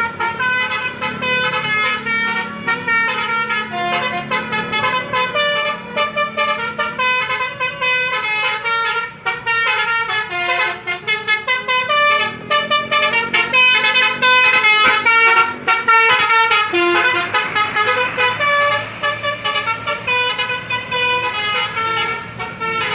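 Telolet bus horn: a multi-tone air horn playing a melody of many short notes that step up and down in pitch, repeated without a break.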